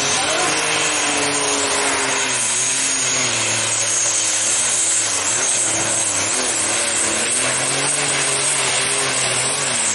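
Four-turbocharger Deutz-Allis pulling tractor engine running flat out under load while dragging the weight sled. Its note wavers up and down as the revs swing, with a steady high whistle over it.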